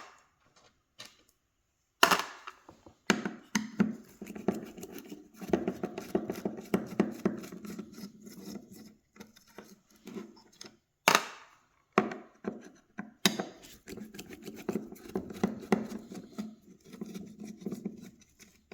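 Screws being undone from a plastic car-speaker housing with a Phillips screwdriver: a few sharp knocks and clacks of the plastic being handled, and two long stretches of fast, scratchy clicking as the screwdriver turns.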